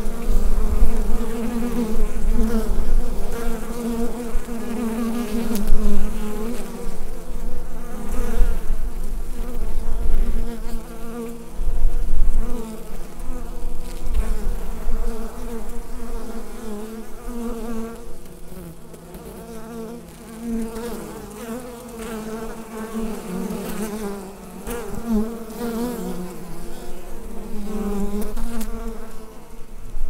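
Many honeybees at a hive buzzing together: a dense hum of wings that wavers in pitch and swells and fades in loudness, easing off for a few seconds past the middle.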